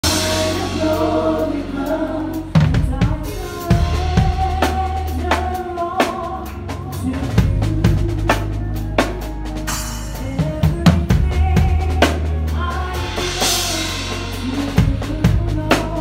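Acoustic drum kit played live with a band: sustained chords and bass at first, then the kit comes in about two and a half seconds in with kick, snare and cymbal hits over the band.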